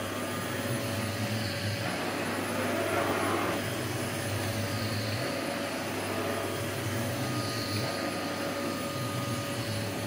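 Hoover Breeze Pets bagless cylinder vacuum cleaner running steadily at full suction, its floor head pushed over carpet: a constant rush of air with a steady motor whine.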